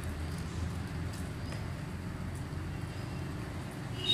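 A steady low rumble runs in the background. Over it come a few faint soft clicks and rustles of fingers packing powdered sattu filling into a cupped ball of dough.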